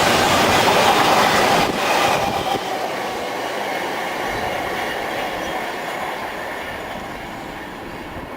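Freight wagons loaded with spoil rolling past on the rails, loud at first, dropping suddenly about two seconds in and then fading steadily as the train draws away.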